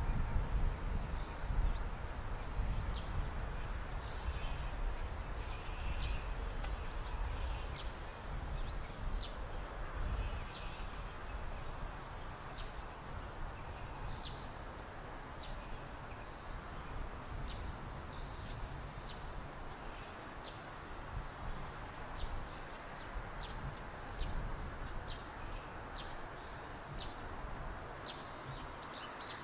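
A small bird chirping repeatedly, with short high calls about once a second, over a low, uneven outdoor rumble that eases after the first dozen seconds.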